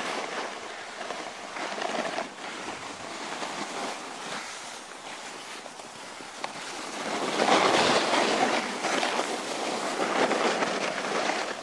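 Snowboard sliding and scraping over packed snow while riding downhill, with wind rushing over the microphone: a steady rushing noise that grows louder about seven seconds in.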